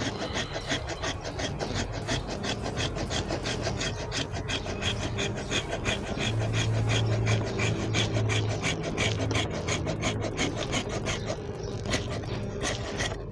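Hand pruning saw cutting through a tugas (Vitex parviflora) branch: a steady, rhythmic run of rasping saw strokes in the wood that thins out near the end as the cut goes through. A low hum sounds underneath for a few seconds in the middle.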